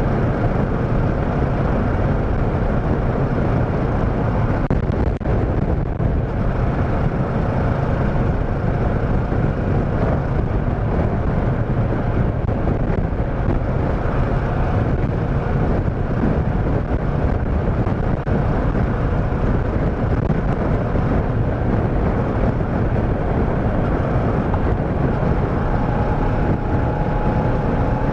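Motorcycle running at a steady road speed, with a constant rush of wind noise on the microphone. Faint rising tones join in near the end.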